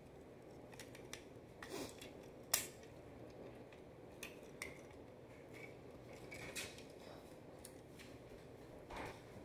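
Small plastic Transformers Optimus Prime toy being twisted and folded by hand into its truck form: a scattered series of faint plastic clicks and snaps as its parts move, the sharpest about two and a half seconds in.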